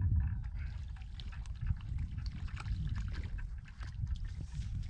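Wind rumbling on the microphone, with scattered small clicks and light water sounds from handling at the water's edge.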